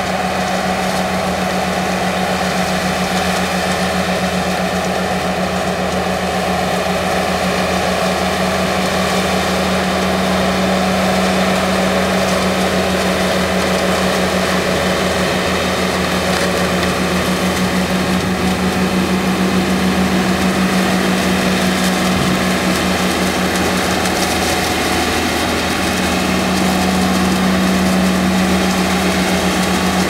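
Braud SB53 grape harvester's diesel engine running steadily as the machine harvests along a vine row, a constant droning hum.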